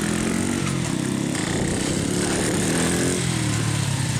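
Two small single-cylinder mini motorcycles running as they ride past, their revs dropping about three seconds in as they slow down.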